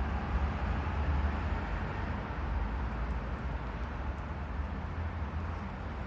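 Wood fire of feather sticks burning in a small pocket fire pit: a steady rumble with faint crackles.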